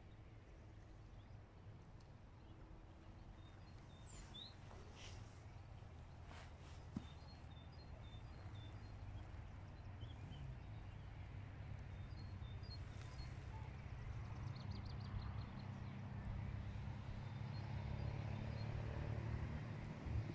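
Faint outdoor ambience: scattered small bird chirps over a low rumble that grows steadily louder toward the end. A single sharp click comes about seven seconds in.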